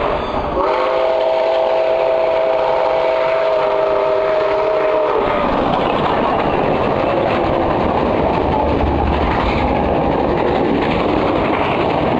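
Steam locomotive No. 765, a 1944 Nickel Plate Road 2-8-4 Berkshire, sounding its chime whistle in one long blast of several notes at once, held steady for about four and a half seconds and cut off suddenly. After that comes the steady rush of its tenders and passenger cars rolling past close by.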